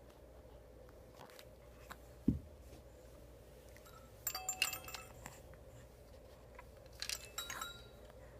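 Baby play-gym hanging toy jingling twice as the baby grabs and mouths it: short bursts of bright tinkling rattles about four and seven seconds in. There is a soft thump about two seconds in, over a faint steady hum.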